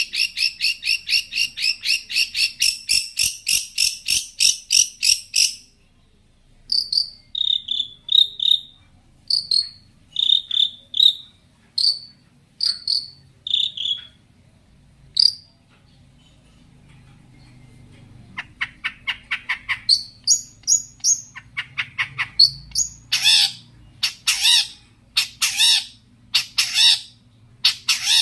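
Long-tailed shrike (cendet) singing a varied mimicking song: a fast run of repeated chirps, then spaced single whistled notes, then loud harsh calls about one a second near the end.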